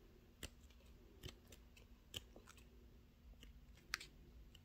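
Faint handling of a sticker book as its paper pages are turned, a few soft sharp clicks over near silence.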